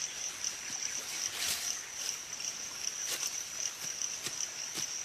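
A steady high-pitched insect chorus drones throughout, crickets or cicadas, with scattered short clicks and crackles on top.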